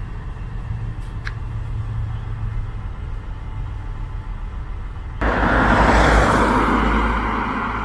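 Steady low rumble of a train in motion, then about five seconds in a sudden loud rushing noise that swells and slowly eases off.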